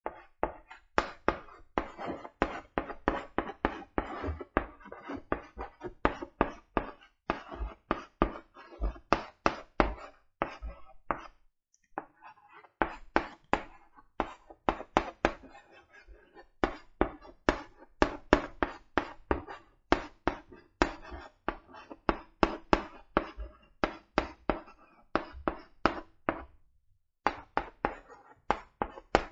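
Chalk writing on a blackboard: a quick, uneven run of taps and short scratchy strokes as each letter is formed, broken by a brief pause about twelve seconds in and again near the end.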